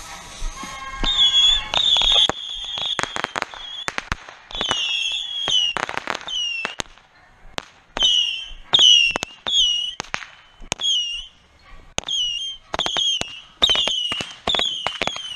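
Whistling bottle rockets and firecrackers going off in a rapid barrage: many short whistles that dip in pitch, mixed with sharp bangs and cracks.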